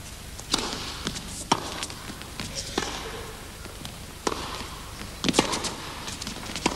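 Tennis baseline rally: racquets striking the ball and the ball bouncing on the court, a string of sharp pops at uneven intervals, roughly one a second.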